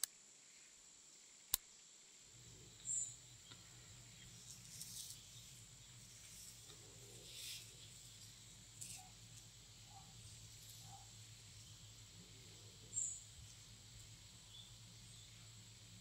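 Faint outdoor ambience: a steady high insect drone, with two short high chirps about ten seconds apart. There are soft rustles of rope being handled and a single sharp click about one and a half seconds in.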